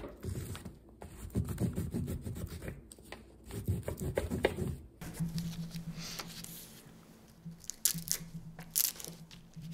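Dry autumn leaves rustling and crackling as hands sort through them. About five seconds in the sound cuts to a wax crayon scratching in short strokes over paper laid on a leaf, with a low tone that breaks on and off beneath it.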